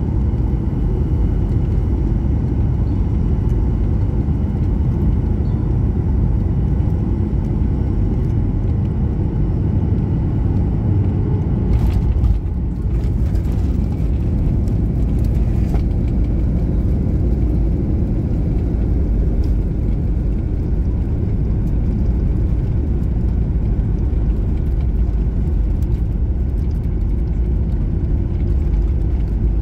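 Airliner cabin noise beside the engine as the jet rolls on the ground after landing: a steady low rumble of engines and wheels on the tarmac, with a brief rattle about twelve seconds in.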